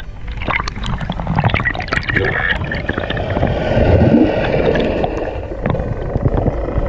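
Water splashing and gurgling as a swimmer goes under the surface, with a dense crackle of bubbles and many small clicks.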